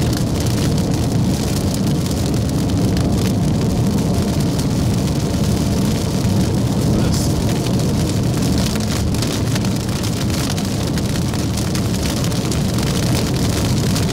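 Steady road and engine noise inside a moving vehicle, with rain on the car.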